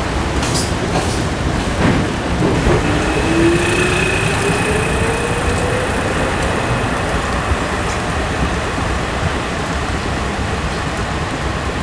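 Peter Witt tram running through rain, a steady rush of rail and rain noise with a whine rising in pitch from about three seconds in to about seven.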